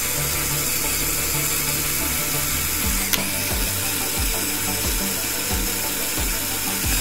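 Rapid, continuous mechanical ratcheting from a Lego Technic plastic gear mechanism being turned, over background music with a steady beat. The ratcheting cuts off suddenly near the end, with a single sharper click about three seconds in.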